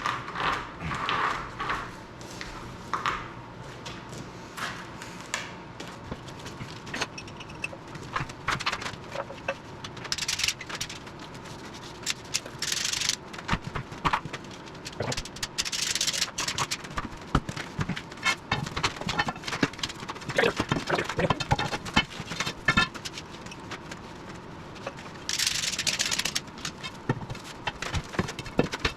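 Metal clanks, clicks and scraping of hand tools at work on a skid steer's track and undercarriage, with a close run of quick clicks in the middle and a few short bursts of hiss.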